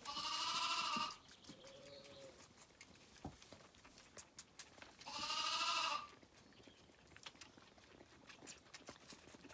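Zwartbles lambs bleating: two loud calls about a second long each, one right at the start and one about five seconds later, with a softer, lower call in between. The lambs are crowding round at bottle-feeding.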